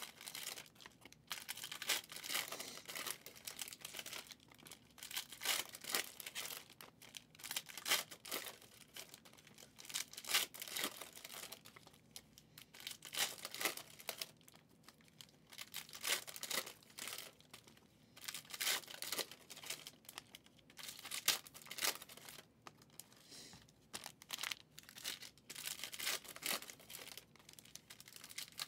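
2023 Prizm football trading cards being handled and flicked through one by one, card sliding against card in a run of short, irregular rustling strokes.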